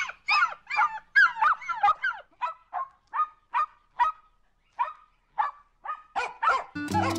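A run of short honking calls, quick at first, then slowing and growing fainter over about six seconds. Music starts near the end.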